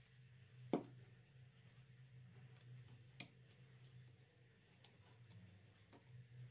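A few sharp clicks from handling a homemade bow sander while a sanding strip is clamped into its wooden end block: a loud one under a second in, another about three seconds in, a faint one near the end. Between them, near silence with a low steady hum.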